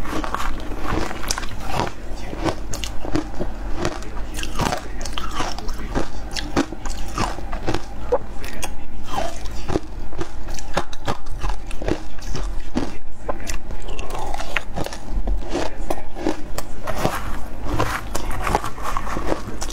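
Shaved ice being bitten and chewed, close-miked: a steady run of many sharp, crisp crunches.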